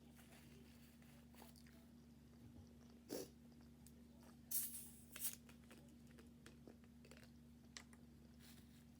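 Quiet close-up eating sounds: a few short crisp bites and chews of food, the loudest about three seconds in and a cluster around the middle, over a steady low hum.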